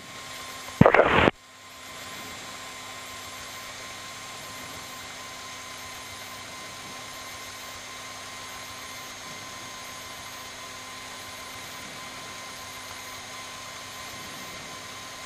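Steady hiss of a light aircraft's cockpit intercom, with the Piper PA-28-151 Cherokee's engine humming faintly beneath it at taxi power. A brief loud burst comes about a second in.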